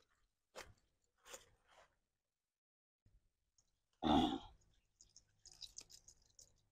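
Mostly near silence, with two faint ticks in the first second and a half, then one short vocal noise from a person, such as a throat-clearing or grunt, about four seconds in.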